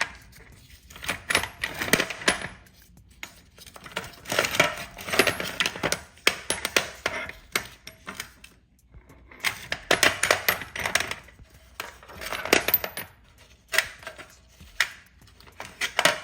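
Old hand tools clinking and rattling against each other as they are handled and moved about in an old toolbox, in several bursts of clatter with short pauses between.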